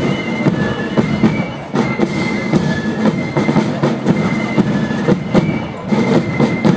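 Marching flute band playing a march: massed flutes carry a high melody over side drums and a bass drum beating time.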